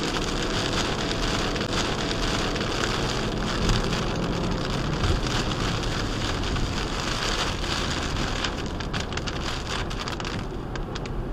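Heavy rain hitting the windshield of a car driving fast on a soaked road, heard from inside the car, with tyre spray and road noise under it. It is a dense, steady hiss that eases a little near the end, where single drop ticks stand out.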